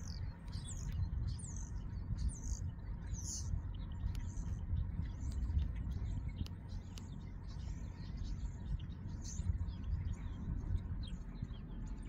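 Small birds chirping: many short, high calls, several a second, over a steady low rumble.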